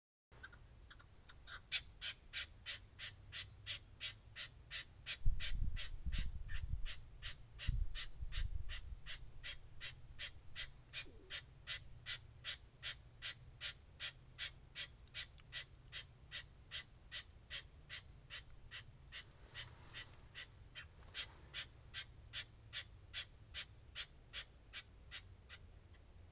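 Red-legged partridge calling in a long, even series of short notes, about two a second. A low thump and rumble about five seconds in and again near eight seconds.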